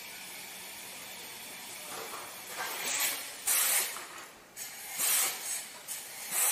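Arc welding: a steady hiss, then louder bursts of hissing and crackling from the arc, three times, the last near the end.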